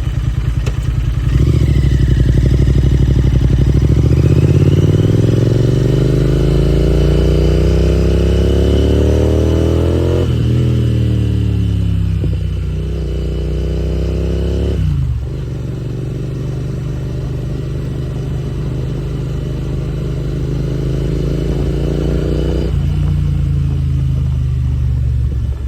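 Royal Enfield Interceptor 650's 648 cc parallel-twin engine and exhaust under way, climbing steadily in pitch for several seconds. The pitch drops sharply about ten seconds in and climbs again, drops sharply once more about fifteen seconds in, then holds a fairly steady note.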